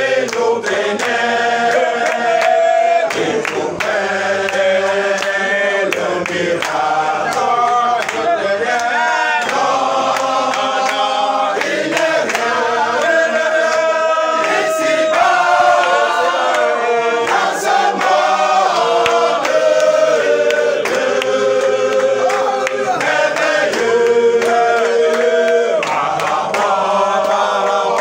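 A congregation of men and women singing a hymn together without instruments, holding long notes in phrases that break every few seconds, with scattered handclaps.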